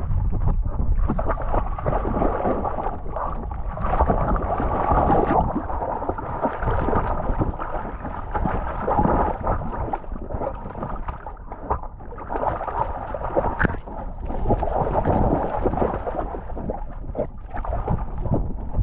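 Water sloshing and splashing around a swimming cocker spaniel, heard close up from a camera strapped to its harness.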